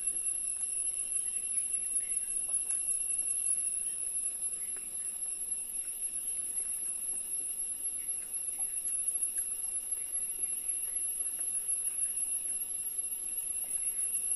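Steady, high-pitched drone of insects, several unbroken tones at once, with a few faint soft clicks of people eating fried dumplings.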